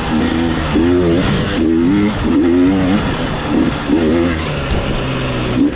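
Off-road dirt bike engine revving up and down again and again as the throttle is worked on and off, its pitch rising and falling about once a second.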